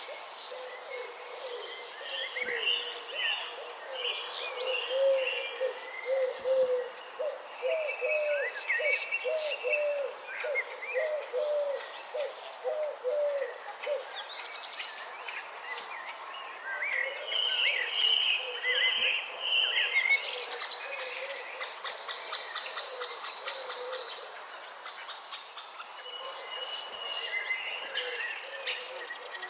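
Nature ambience: a steady high-pitched insect drone with several birds chirping and trilling over it. From about five seconds in, a run of low repeated call notes comes about two a second for roughly eight seconds.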